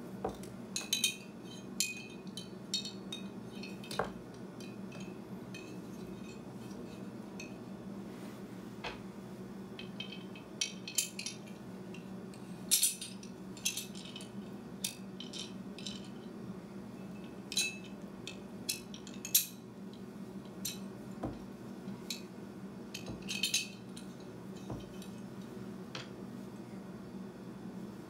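Small metal parts clinking and rattling by hand: the metal mounting bracket and its bolts knocking against a Rigid D-SS Pro LED pod light housing as they are fitted together, in scattered short clicks. A steady low hum runs underneath.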